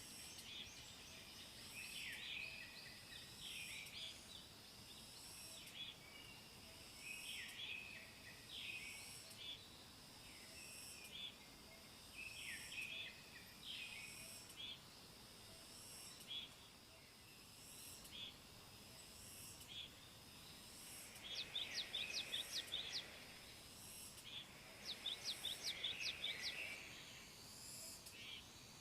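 Small birds chirping over a steady, pulsing insect drone. Two quick series of sharp, high notes, about eight each and louder than the rest, come in the last third.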